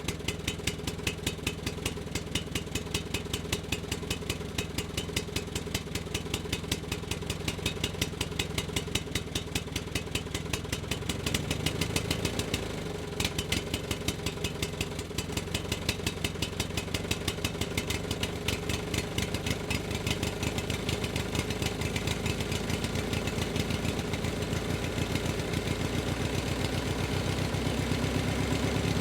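A motor idling steadily with an even, pulsing beat. A little after ten seconds in, its low rumble grows louder.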